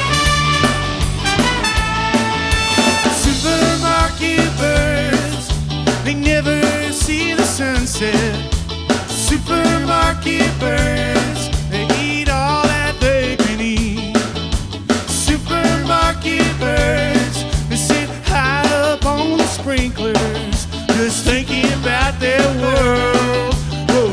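A band playing an instrumental passage of a song, with a steady drum-kit beat, a bass line and melody instruments, without vocals.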